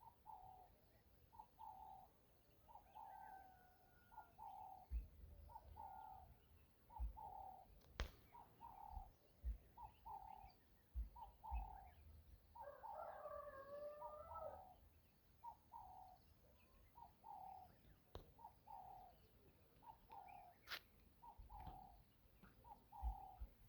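Faint bird calls: a short note repeated steadily, about one and a half times a second, with a longer, more complex call near the middle. Occasional low thumps and a couple of sharp clicks.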